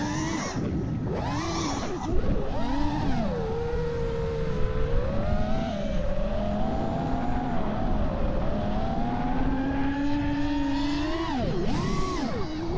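Five-inch FPV quadcopter's brushless motors (Emax ECO 2207 2400KV) and props whining in flight, the pitch swooping up and down with throttle near the start and end and holding steadier, then slowly rising, in between. Wind rushes over the onboard camera's microphone underneath.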